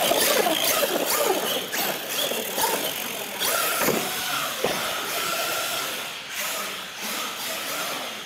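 Radio-controlled monster trucks' electric motors whining, rising and falling in pitch as they accelerate and slow, with a couple of sharp knocks about four seconds in as a truck jumps a ramp and lands.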